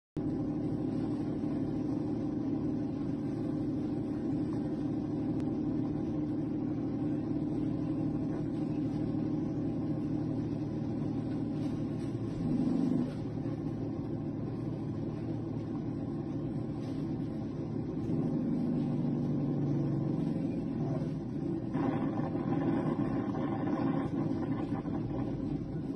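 Truck engine droning steadily as heard from the cab. Near the end, rougher knocking and rattling comes in as the truck runs into a flock of sheep.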